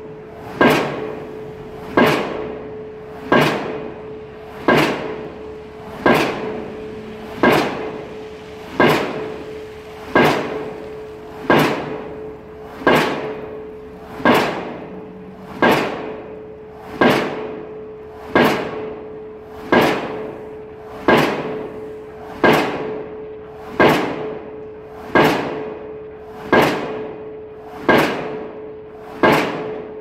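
Diesel impact pile hammer driving a steel pile: a sharp metallic bang about every second and a half, each ringing briefly away, over a steady hum.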